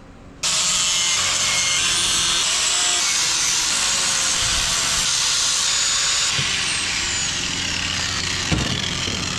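Handheld angle grinder grinding the edges of a clamped stack of 16-gauge sheet-steel brackets to shape, running steadily under load. It starts abruptly about half a second in.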